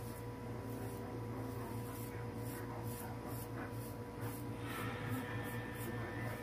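Razor scraping through stubble on a lathered cheek in short, repeated strokes, coming faster near the end, over a steady low hum.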